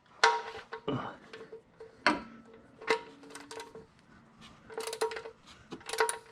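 Metal tools clinking and tapping on metal parts while a fitting is tightened back up during an oil change: a string of sharp, irregular clinks with a short ring, a busier cluster about five seconds in.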